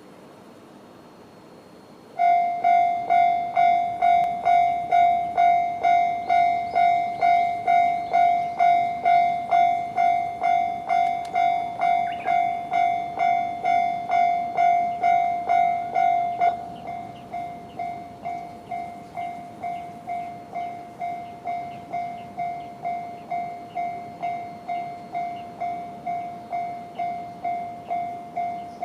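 Level-crossing alarm bell ringing the JR standard electronic tone, starting about two seconds in: a steady repeating ding at a little under two strokes a second, warning of an approaching train. About sixteen seconds in it drops to a noticeably lower volume and keeps ringing.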